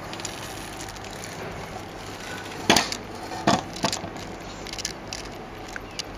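A few sharp knocks and clicks, the loudest two a little under a second apart near the middle, then lighter ticks: the steel axle rod of a wooden trolley being handled and shifted in its metal mounting plate.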